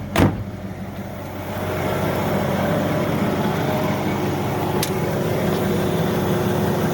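Land Rover Discovery's 4.0-litre V8 running at idle. A sharp knock comes just after the start, and from about a second and a half in the running noise grows louder and stays steady.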